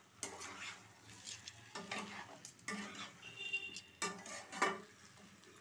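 Metal spatula stirring and scraping chicken pieces coated in yogurt and green masala around a nonstick pan, in about eight irregular strokes.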